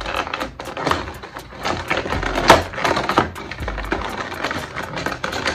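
Clear plastic blister-pack tray being flexed and pulled apart by hand, crackling with a run of irregular clicks and one sharper crack about two and a half seconds in.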